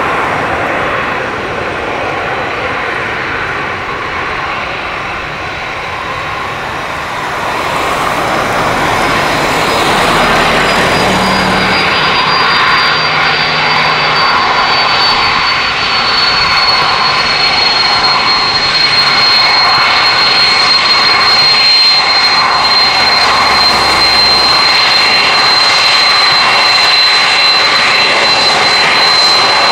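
Boeing 767's twin jet engines at low taxi power, growing louder about eight seconds in as the airliner comes closer. A high fan whine slides down a little and then holds a steady pitch.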